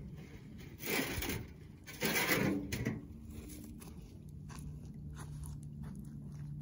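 Two crunching footsteps in dry fallen leaves, about a second apart. A faint steady low hum comes in about four seconds in.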